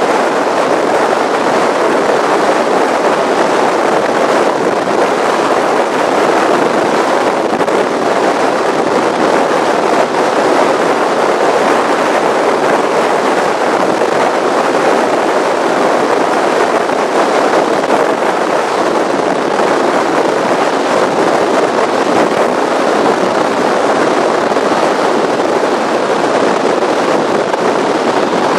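Steady, loud rush of wind over the microphone mixed with engine and water noise from a powerboat running fast across choppy water.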